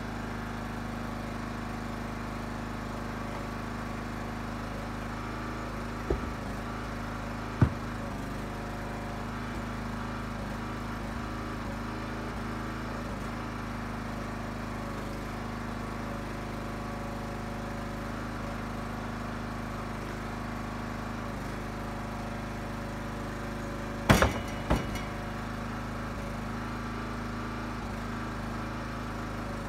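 Huskee 35-ton log splitter's engine running steadily, with a few sharp knocks: two about six and seven and a half seconds in, and a louder cluster a little past twenty-four seconds.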